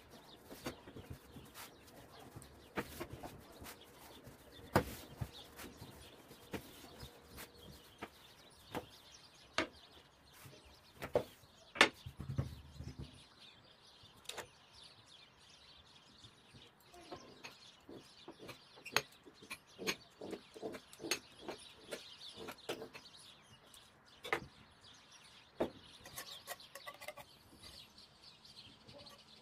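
Scattered short taps and knocks from dough being rolled and handled on a wooden board, with birds chirping and clucking in the background.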